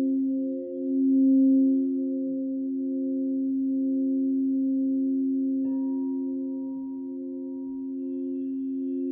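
Crystal singing bowls tuned to 528 Hz ringing in several steady overlapping tones, one of them wavering slowly. A little over halfway through, another bowl is struck and adds a higher ringing tone.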